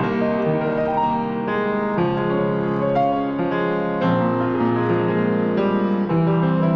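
Slow instrumental keyboard music: held chords moving to a new chord every second or so, with no singing.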